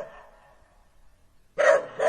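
A dog barking: the end of one bark fades out at the very start, then one loud bark comes about one and a half seconds in.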